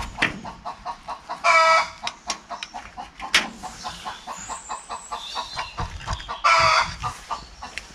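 Backyard hens clucking in quick, steady runs, with two louder drawn-out calls, one about a second and a half in and one near the end.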